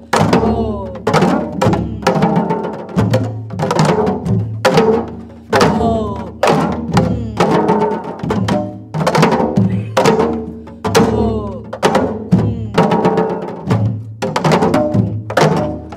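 Janggu (Korean hourglass drums) played by a group in the gutgeori rhythm. Sharp stick strokes and deeper open strokes repeat steadily, and each rings with a note that slides down in pitch.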